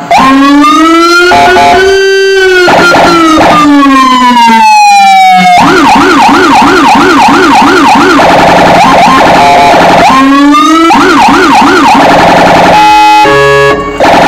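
Vehicle electronic siren, a Landun siren amplifier system, run loud through its tone patterns. A slow wail rises and falls over the first five seconds, then switches to a fast yelp of about three to four sweeps a second. Warbling tones and a second yelp follow, and it ends in a short stepped series of tones.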